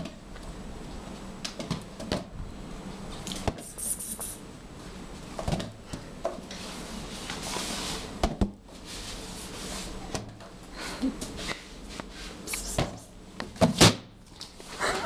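Scattered knocks, taps and rustling from close movement on a tiled floor, with one sharp knock near the end.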